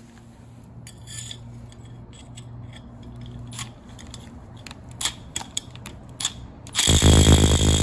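Light metal clicks and knocks as a long 1/8-inch hex bit is fitted into the set screw of a furnace inducer motor's fan wheel. About seven seconds in, an impact driver on its highest setting starts up loudly on the set screw, working to break the oil-soaked, stuck screw loose.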